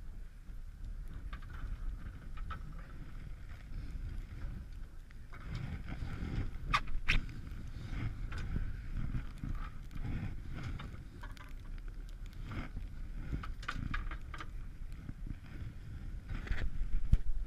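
Rumble and rustle of a body-mounted camera as a big-game lever-drag reel is wound in. Scattered clicks and knocks come from the reel and gloved hands, growing busier about five seconds in, with a louder cluster of knocks near the end.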